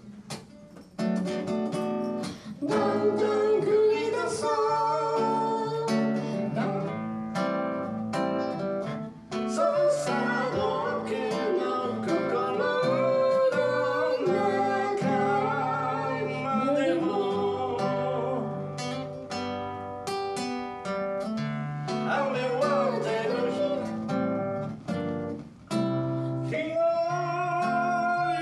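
A man singing along to his own strummed acoustic guitar, chords ringing steadily under the sung melody.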